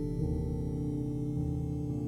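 Soft background music: slow, sustained keyboard notes with a singing-bowl-like ring, changing chord about every second.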